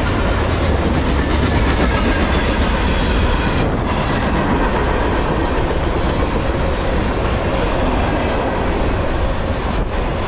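Freight train of tank cars rolling past at close range: the steady rumble of steel wheels running on the rails, with no locomotive or horn.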